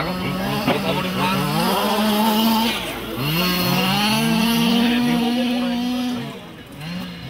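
Small two-stroke engine of a large-scale RC car revving: a few quick throttle blips climbing in pitch, then held at high revs for a couple of seconds before dropping off. The same happens a second time.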